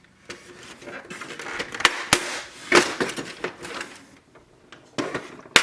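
Plastic printer parts being worked loose by hand: scattered clicks, knocks and short scraping rustles as the last section of the automatic document feeder tray is freed, with a sharp snap near the end.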